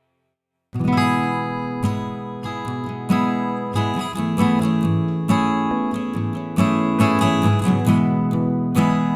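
Background music: a strummed acoustic guitar, beginning suddenly after a moment of silence under a second in, with chords struck in a steady rhythm.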